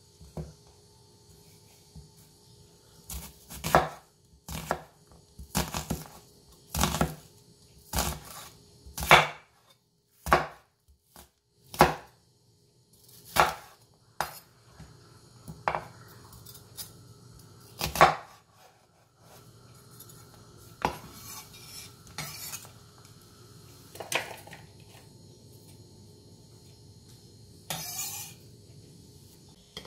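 Chef's knife slicing an onion on a wooden cutting board: a string of irregular sharp chops as the blade knocks through onto the board, close together through the first half and sparser later, with one longer rasp near the end.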